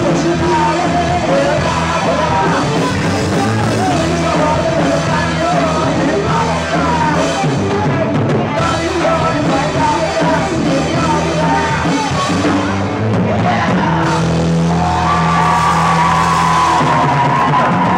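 Live rock band playing with singing. Near the end the music settles into long held notes.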